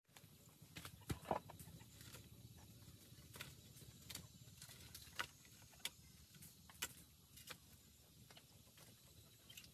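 Small wood cooking fire crackling, with scattered sharp pops and two louder knocks about a second in.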